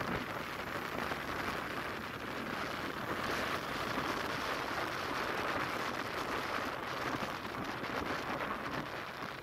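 Steady rushing noise of air and road traffic heard from a vehicle moving along a city street, with no distinct engine note or horn.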